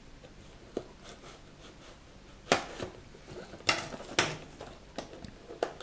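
Scissors cutting the seal of a small cardboard box with a faint click, then several sharp clacks and knocks as the scissors are set down on the table and the box is handled.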